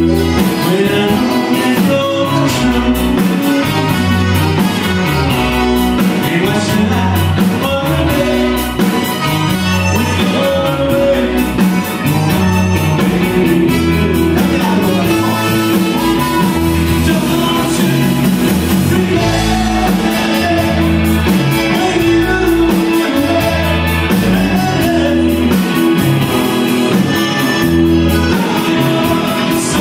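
Live Tex-Mex band playing with accordion, electric guitar, bass, drums and keyboard, a steady beat under it, heard from the audience in a hall.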